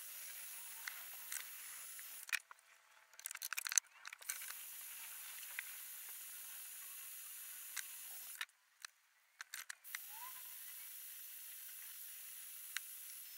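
Heat gun blowing hot air with a steady hiss, which drops out twice for a second or two, with a few faint ticks.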